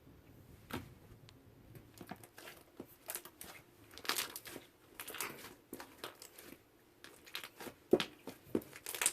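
Fluffy slime being squeezed and worked, giving irregular crackles and bubble pops, the loudest pop near the end.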